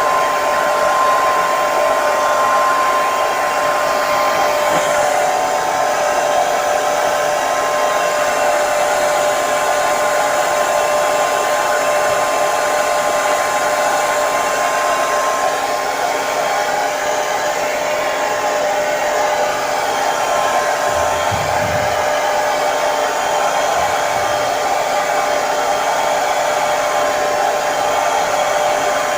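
Hair dryer running continuously: a steady blowing hiss with a constant motor whine.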